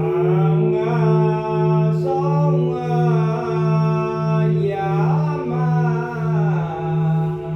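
A voice chanting in long held notes that glide from one pitch to the next, over a steady ringing bell drone that swells and fades about one and a half times a second.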